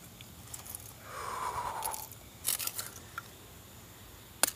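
A broken plastic mobile phone being handled and worked apart: a scraping crackle about a second in, a few small clicks, then a sharp click near the end.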